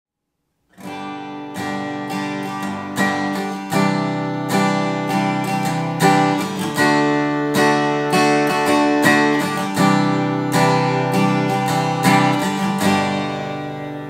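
Cort Gold A6K acoustic guitar playing a chord-based passage, notes and chords picked with sharp attacks and left to ring. It comes in just under a second in, and the last chord rings on and fades near the end.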